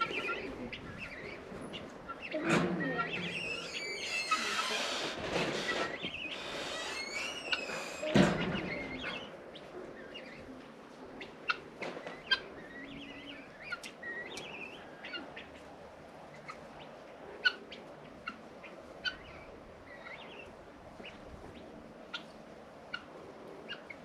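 Young guinea fowl (keets) in a pen calling in many short, high chirps. About four seconds in there are a few seconds of rustling noise, ending in a sharp knock, then scattered small clicks among the calls.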